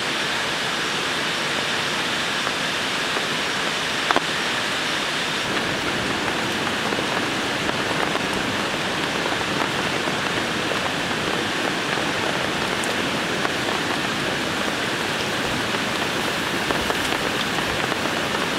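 Steady rain falling, a continuous even hiss, with one sharp tick about four seconds in.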